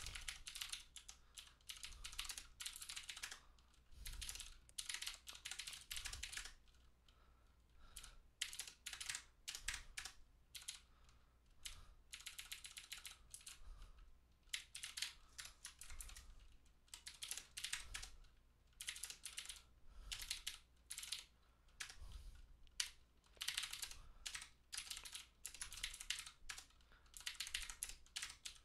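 Fast typing on a computer keyboard: bursts of rapid key clicks broken by short pauses.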